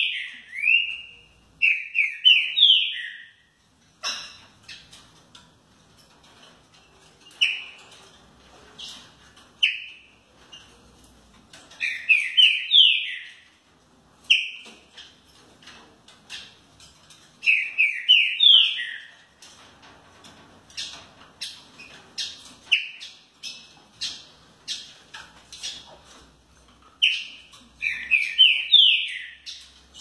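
Caged trinca-ferro (green-winged saltator) singing: loud phrases of four or five quick, rising whistled notes, repeated every few seconds, with single whistled notes and faint clicking in between.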